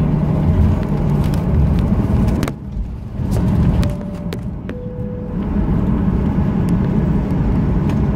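Cabin noise of a Boeing 737-800 taxiing: the steady hum of its CFM56 engines at taxi power with the rumble of the airframe and wheels. The noise drops for a moment a few seconds in, and two short faint tones sound, the second lower than the first.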